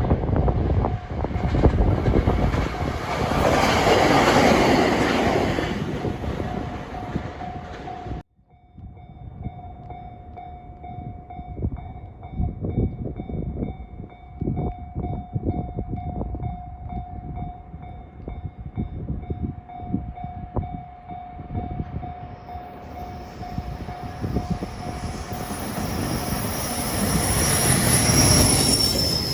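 A level-crossing warning bell rings steadily, a repeating electronic clang. Electric trains run through the crossing twice: a 521 series EMU is passing at first, and an EF510 electric locomotive with a freight train comes up and passes close by near the end, with wheel squeal.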